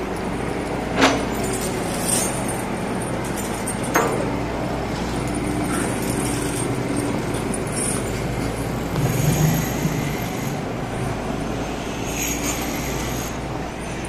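Street ambience with a steady traffic hum, two sharp knocks about one and four seconds in, and a vehicle passing close by near nine seconds.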